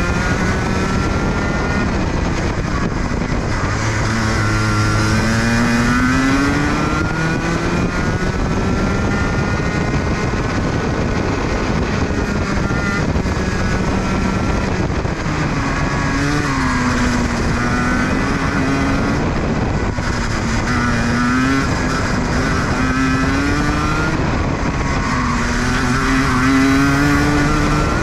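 Racing kart engine at high revs, heard from on board over wind and road noise. Its pitch drops and climbs again about four times as the kart slows and accelerates.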